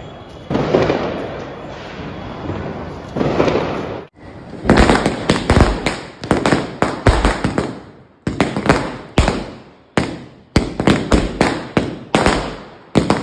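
A string of firecrackers set on the ground bursting: a rapid, irregular run of sharp bangs that starts about four and a half seconds in, some bunched tightly together and some spaced out. Before it come three rumbling booms with long fading tails.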